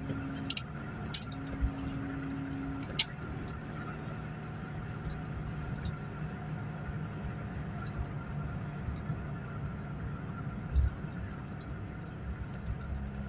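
Ford Fiesta Mk2 XR2's carburetted four-cylinder engine running steadily at cruising speed, heard from inside the cabin along with tyre and road noise. A few light clicks come in the first three seconds, and there is one low bump about eleven seconds in.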